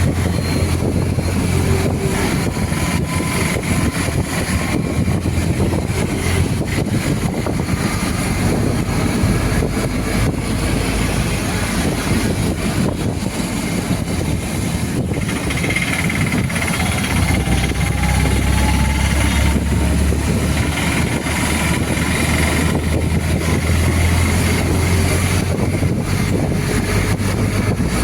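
Passenger train running, a steady loud rumble with rushing noise.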